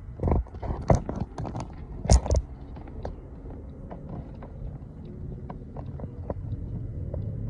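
Handling noise of a phone being moved and set up: a run of sharp clicks and knocks, loudest in the first two and a half seconds, then lighter ticks. Under it runs a steady low hum of a vehicle cabin.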